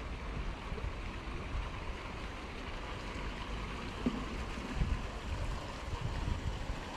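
Steady outdoor hiss with uneven low gusts of wind buffeting the microphone, the gusts thicker from about four seconds in.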